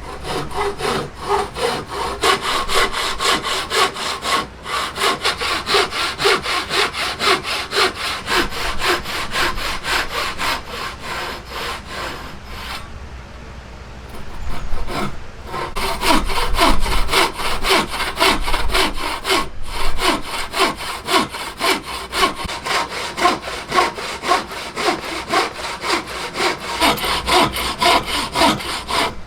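Hand saw cutting through wood in fast, even back-and-forth strokes, with a short pause about halfway through before the sawing resumes.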